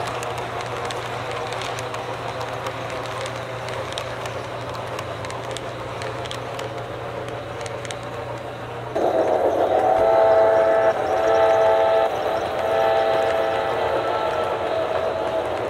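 HO-scale model train running on track, with a steady hum and small clicks from the rolling cars. About nine seconds in, the sound-equipped Santa Fe steam locomotive model sounds its steam whistle, louder, in several blasts.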